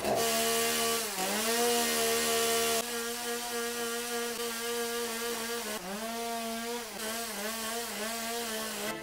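Two-stroke chainsaw running at high revs while carving wood. Its engine note sags briefly each time the chain bites into the wood: once about a second in, and several times in the second half.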